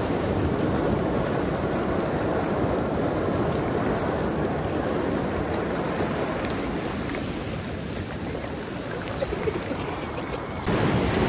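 Ocean surf breaking and washing up a black-sand beach around stranded chunks of glacier ice, a steady rush of water. Just before the end it changes abruptly to a louder, brighter rush.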